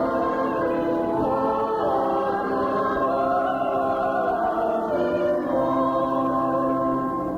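A congregation singing a hymn together, many voices holding long notes that change every second or so.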